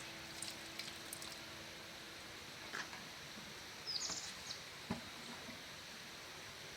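Steady outdoor background hiss with a short high bird chirp about four seconds in and a few faint clicks.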